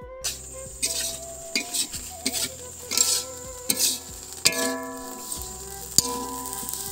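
A metal spatula scraping and stirring grated coconut as it dry-toasts in a steel wok, in repeated short strokes, with a few sharp clinks against the pan. Soft background music runs underneath.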